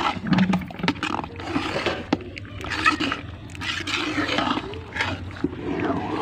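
A metal ladle stirring thick daliya (cracked-wheat porridge) in a large aluminium pot, scraping the pot in repeated strokes with sharp clicks where it knocks the metal.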